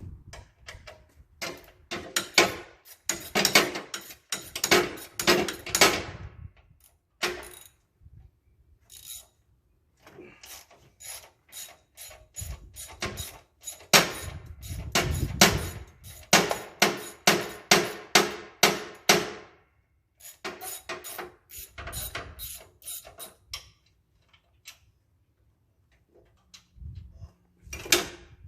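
Hand socket ratchet clicking as it swings back and forth on an extension to loosen bolts, in several runs of rapid clicks, about three a second, with short pauses between.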